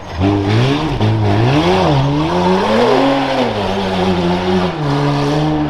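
SUV race truck's engine revving up and down several times as it is driven over dirt mounds on a rough-truck course, then holding a steadier pitch near the end.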